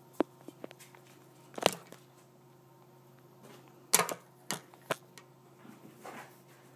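Scattered sharp knocks and taps of the camera being bumped, the loudest about a second and a half in and about four seconds in, over a faint steady room hum.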